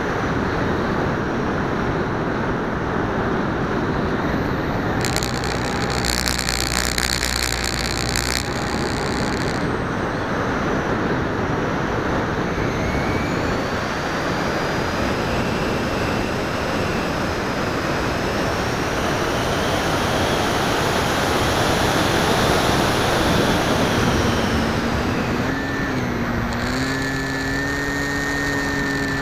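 Onboard audio of an FPV model aircraft in flight: a steady rush of wind and propeller noise, with a motor whine that slowly rises and falls in pitch. A few steady tones join near the end.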